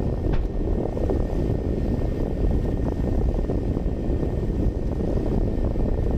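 Fireworks show: a continuous low rumble of shells bursting and echoing, with a few faint sharp cracks.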